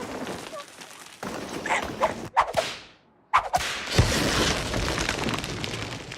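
Slapstick cartoon sound effects: a quick whoosh, a moment of silence, then a sudden loud burst followed by a thud and a rushing noise.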